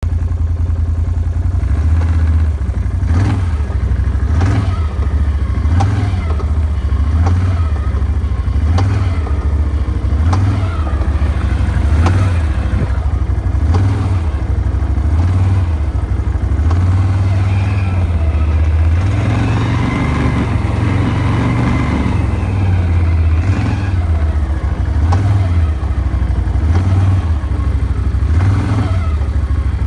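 A new Can-Am's engine running steadily, with a sharp click that repeats about every second and a half and a pulse in the low rumble at the same pace. The owner cannot explain the clicking.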